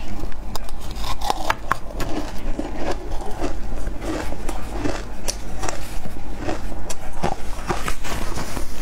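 Close-miked chewing of a mouthful of shaved ice: an irregular run of small crunches and crackles.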